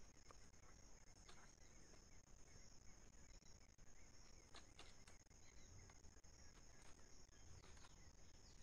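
Near silence with a faint, steady, high-pitched insect buzz, and a few faint clicks scattered through it.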